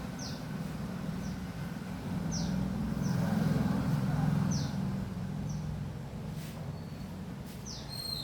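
Bird chirping: short, high, falling chirps repeated roughly once a second, over a low rumble that swells in the middle.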